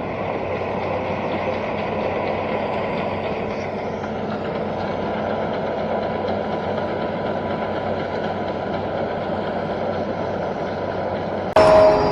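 Hitachi Zaxis 210 amphibious excavator's diesel engine running steadily as the machine travels on its own pontoon tracks. Near the end the sound jumps suddenly louder, with a clear steady hum.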